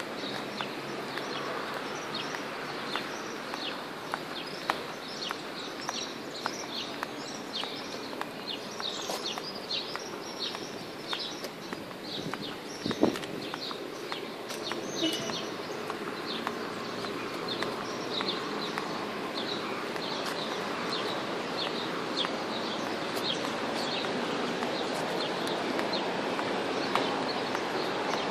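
Many birds chirping in the park trees: short, high calls that each drop in pitch, repeated over and over, over a steady hum of city background noise. A sharp click stands out about halfway through.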